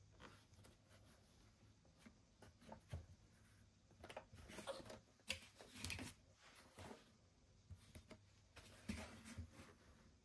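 Faint rubbing and light knocks as hands grip and turn over the plastic case of a ResMed AirSense 10 CPAP machine, switched off. Most of the handling noise comes from about four to seven seconds in and again around nine seconds.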